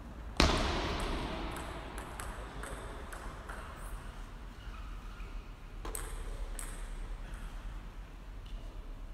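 Table tennis ball clicking off the bats and the table in a quick rally, echoing in a large hall; it opens with one loud bang that rings on for about a second, and a few more ball clicks follow a few seconds later.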